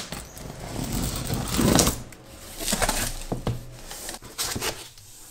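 A cardboard shipping box being opened: packing tape slit with a utility knife and the flaps pulled open and folded back, with scraping and rustling of cardboard. A sharp click comes first, the loudest scrape about a second and a half in.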